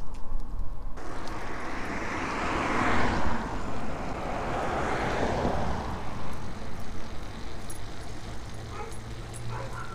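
Road traffic passing close by, two swells of tyre and engine noise about three and five seconds in, over a steady rush of wind on the microphone from the moving bicycle.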